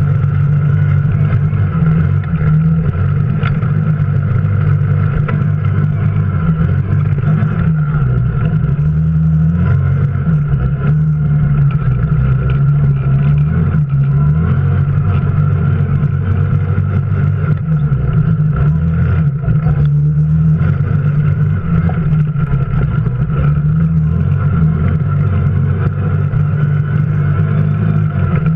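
Engine of a small off-road vehicle running steadily as it drives over a rough dirt track, its pitch wavering and dipping briefly a few times with the throttle.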